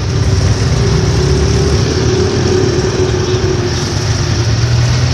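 Motorcycle engine of a sidecar tricycle running, heard from inside the sidecar as a loud, steady low drone. A faint higher whine rises over it through the middle and fades near the end.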